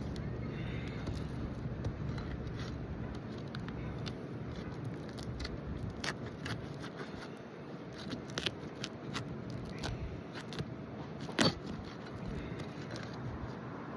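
Scattered scrapes and clicks of asphalt shingles and tools being worked on a roof during a repair attempt on brittle shingles, over a low steady rumble, with one sharp knock about eleven and a half seconds in.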